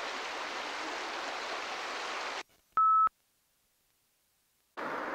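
A steady hiss cuts off suddenly a little over two seconds in. In the silence a single short, loud electronic beep sounds, and the hiss comes back near the end.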